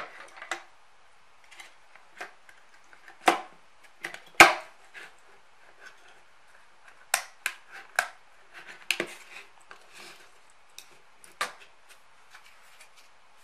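Handling clicks and knocks as a laptop battery's 18650 cell pack and its black plastic case are turned over and set down on a wooden desk and fitted together. The knocks are irregular, the sharpest about three and four seconds in and a quick run of them between seven and nine seconds.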